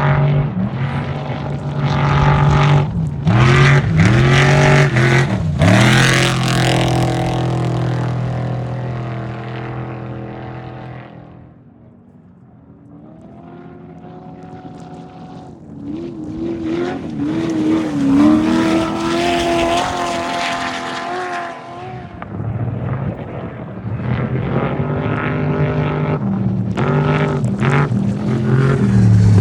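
Off-road race vehicles' engines revving hard as they pass one after another: a loud pass at the start that fades away to a lull about halfway, then another vehicle approaching and passing with rising and falling engine pitch, and a third building up near the end.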